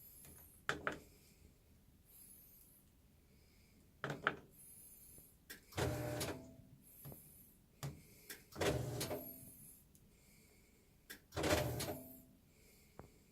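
Faulty washing machine making a short mechanical clunk-and-rumble about every three seconds, each one starting with a sharp click.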